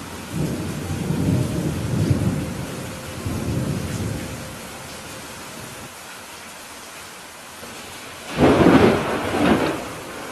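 Heavy rain hissing steadily. Low thunder rolls through the first few seconds, then a sudden, loud crack of thunder comes near the end.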